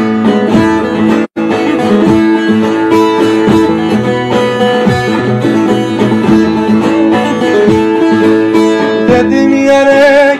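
Bağlama (long-necked Turkish saz) playing a fast instrumental passage of plucked notes, a folk-tune interlude between sung verses. The sound cuts out for an instant about a second in.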